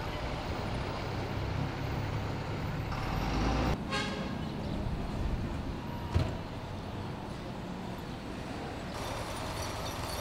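Outdoor city ambience with steady motor-vehicle traffic noise. There is a brief pitched squeal about four seconds in and a single sharp knock about six seconds in.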